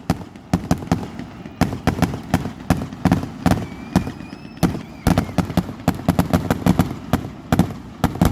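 Fireworks going off in a rapid, irregular string of sharp bangs, several a second, each with a short rumbling tail.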